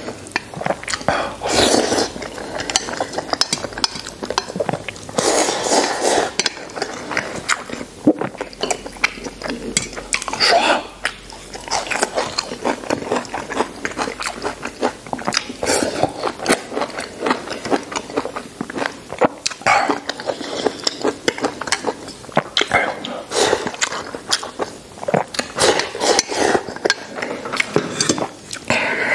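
Eating sounds: chewing mouthfuls of braised pork knuckle, coming in bursts every few seconds, with short clicks of chopsticks against a metal bowl.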